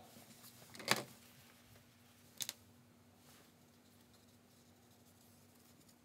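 Quiet painting sounds from a brush worked on watercolour paper at a wooden table: one sharp knock about a second in and a quick double tick around two and a half seconds in, over a faint steady hum.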